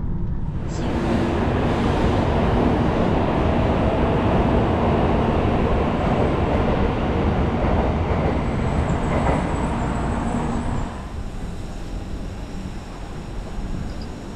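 Shinkansen bullet train running: a loud, steady rushing rumble of rail noise that swells in about a second in and drops to a quieter level about eleven seconds in.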